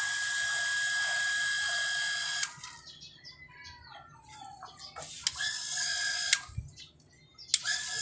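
Small electric booster water pump running with a steady whine that cuts off abruptly about two and a half seconds in. Faint chirps and a few sharp clicks follow, and the whine starts again near the end.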